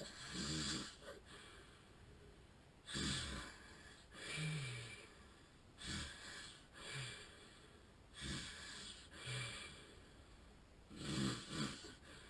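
A man with sleep apnea snoring in his sleep: a rasping snore on each breath, roughly every three seconds, each followed by a shorter, lower snort.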